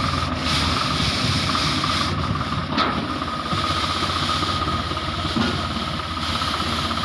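Tractor engine running steadily with a tractor-mounted hydraulic road broom, a steady high whine and a hiss over the engine's low hum. A brief click about three seconds in.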